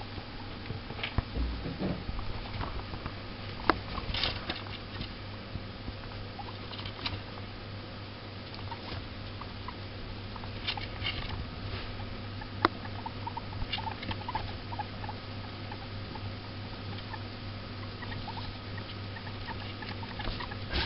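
Two guinea pigs moving about in hay bedding in a wooden hutch: scattered rustling of hay and small taps and clicks, with a sharp tick about twelve seconds in, over a steady low hum.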